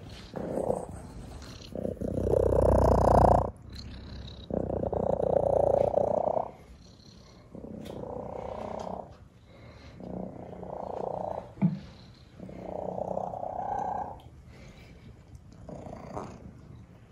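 A black domestic cat purring very loudly, the purr swelling and fading with each breath about every two to three seconds. A brief knock sounds about halfway through.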